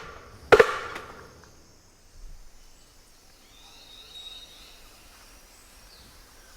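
A sharp wooden knock from a mechanical double-knock device imitating the double-knock drumming of a Campephalus woodpecker, about half a second in and ringing out for about a second. Then quiet forest ambience with faint high-pitched bird or insect calls.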